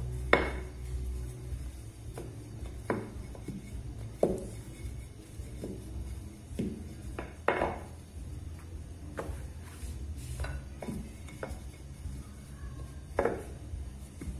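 Wooden rolling pin rolling out chapati dough on a countertop, its ends knocking on the counter in sharp, irregular clacks every second or two, over a steady low hum.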